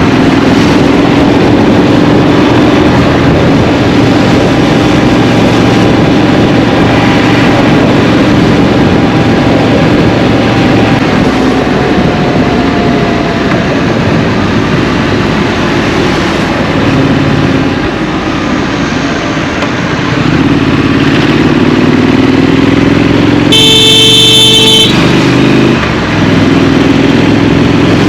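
A Triumph Street Scrambler's parallel-twin engine runs steadily while riding in traffic, its revs rising about two-thirds of the way in. Near the end a vehicle horn sounds once for about a second.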